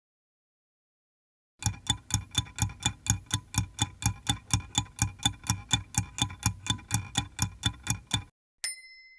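Stopwatch ticking sound effect, about four ticks a second, starting about a second and a half in and stopping shortly before the end, followed by a single ringing ding as the timer runs out.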